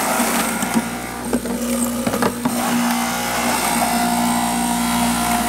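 Electric centrifugal juicer running at a steady motor hum while pieces of pear and apple are pushed down the chute and ground, with irregular crunching knocks for the first couple of seconds, then a smooth steady run.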